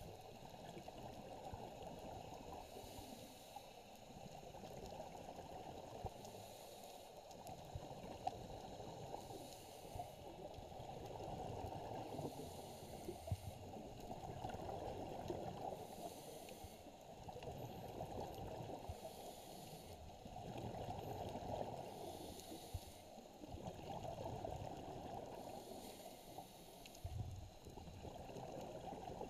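Scuba diving underwater, heard through a camera's waterproof housing: a muffled, steady low rush of water, with a diver's exhaled regulator bubbles hissing about every three seconds.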